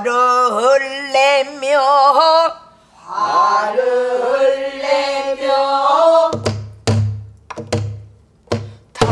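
A woman singing a pansori phrase with heavy vibrato, in two long sung lines. In the last three seconds come five strokes on a buk barrel drum, each a sharp knock with a low boom.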